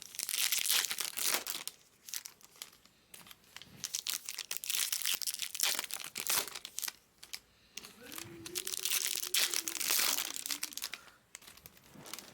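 Crinkling and tearing of plastic wrapping on trading-card packaging, handled close to the microphone in irregular bursts. About eight seconds in, a steady low hum sounds for a couple of seconds.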